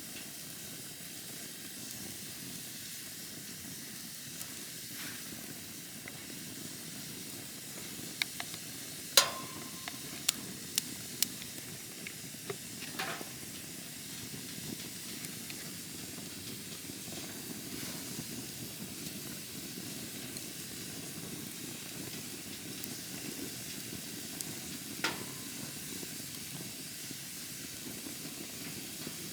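Wood campfire burning: a steady hiss with scattered sharp crackles and pops, a cluster of them about a third of the way in, the loudest among them, and one more near the end.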